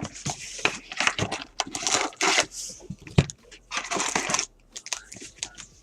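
Plastic wrapping crinkling and tearing in short bursts, with a few sharp clicks, as a sealed trading card box and its packs are opened.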